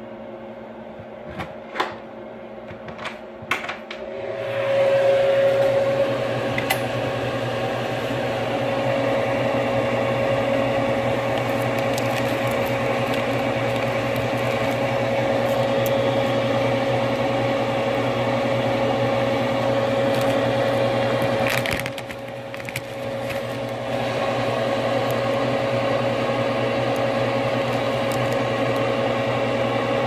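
Incubator fan running with a steady hum and one constant mid-pitched tone. It comes in loud about four seconds in, after a few light clicks, and drops away briefly a little past the middle before running on.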